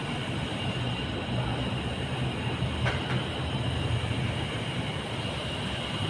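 Steady low mechanical hum with a thin, constant high whine over it, and one light click about three seconds in.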